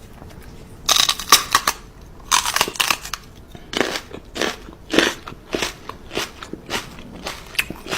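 Crisp crunching. Dense clusters of crunches come about a second in and again around two and a half seconds, then single crunches follow about twice a second.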